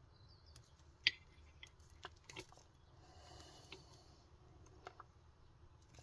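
Faint handling clicks and taps as a hand wire crimper is brought to a blue insulated crimp terminal on the wire ends, with one sharper click about a second in.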